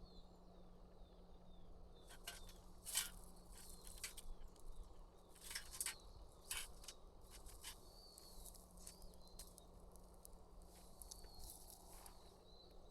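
Scattered sharp clicks and ticks, loudest about three seconds in, over faint repeated high chirps of insects.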